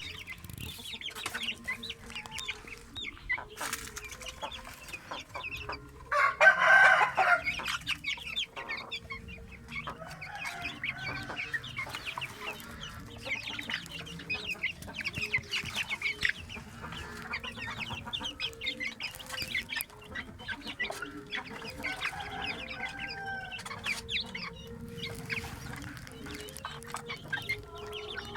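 A flock of chickens clucking with many short calls, and one loud rooster crow about six seconds in.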